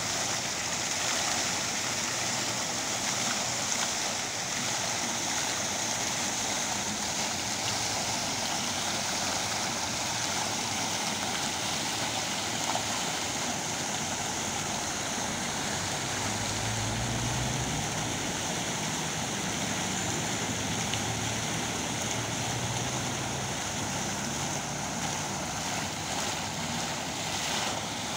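Fountain jets spraying and splashing back into the pool: a steady rush of falling water.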